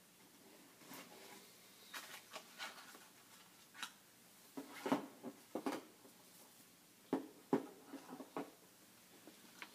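Liquid heating in a glass pot, faint and irregular: scattered pops and ticks as bubbles form and burst. The pops bunch up a little before the middle and again past two-thirds of the way in.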